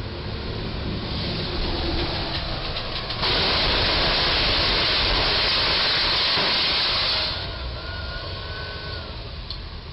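Penske box truck's cargo-box roof scraping and tearing against the low railway bridge's crash beam as the truck drives on under it. It is a loud, even noise that starts suddenly, holds for about four seconds and cuts off.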